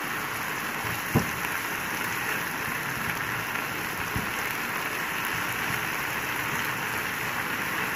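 Chicken mince, onion and green chillies sizzling steadily as they fry in butter in a nonstick pan while being stirred, with a spatula knocking once against the pan about a second in.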